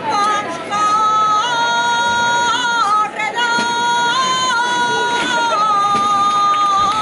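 A solo voice singing a Valencian albada: long, high held notes, each sustained for a second or more and stepping between a few pitches with ornamented turns.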